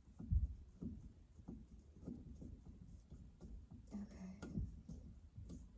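Quiet, irregular knocks and taps of hands handling tools and parts while a smoke alarm's mounting hardware is being screwed in place.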